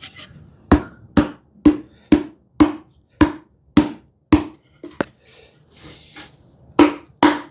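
Glued through-dovetail joints of a wooden drawer being knocked together with a steady series of sharp blows, about two a second. After a short pause there are two more blows near the end.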